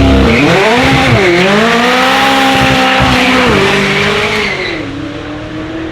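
A high-performance car engine accelerating hard, its note climbing and dropping with each gear change, then fading as the car pulls away.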